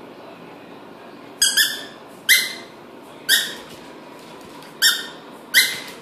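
Small terrier barking at a tennis ball held in front of it, in play. About six short, sharp, high-pitched barks, irregularly spaced, starting about a second in.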